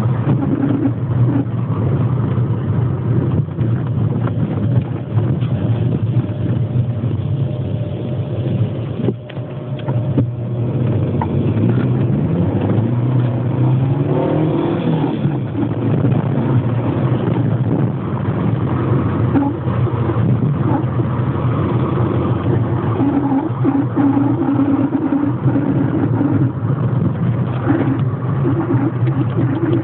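Citroën Saxo engine running with a steady low hum and a noise described as weird. Its pitch rises and falls back once, about eleven to fifteen seconds in, as it revs.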